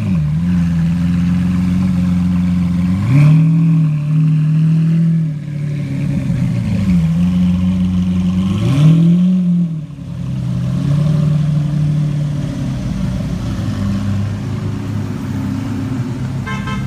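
Lamborghini Aventador's V12 engine running loud at low speed, with four short throttle blips that lift its pitch and drop back. It then settles to a lower, steady drone that slowly fades as the car pulls away.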